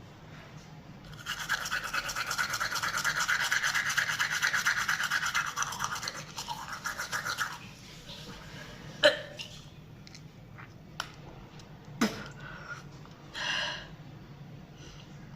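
Toothbrush scrubbing teeth in fast back-and-forth strokes for about six seconds, starting about a second in. After that come two sharp clicks and a brief rustle.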